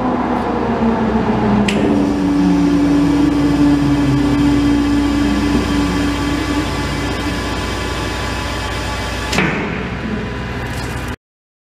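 CMC triple roller bar mixer running with a steady motor drone and hum while its bowl tilts open, a steady tone sounding from about two seconds in to six and a half seconds. A click about two seconds in and a sharper metallic clack near the end, then the sound cuts off abruptly.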